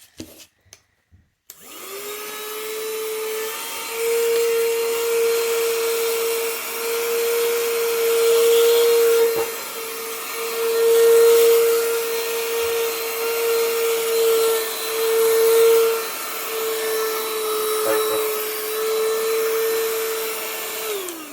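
Cordless handheld 3-in-1 vacuum cleaner switched on with a click, its motor spinning up to a steady high whine with a rush of air, the level swelling and dipping as it runs, then winding down with a falling pitch near the end.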